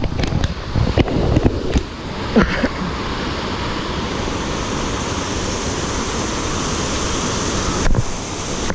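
Steady rush of creek water, loud and even, with a few scattered knocks and clicks in the first three seconds and one more near the end.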